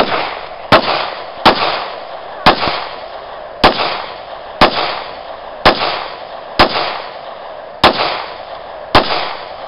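Gun fired ten times in slow succession, about one shot a second, each shot sharp and trailing off in echo.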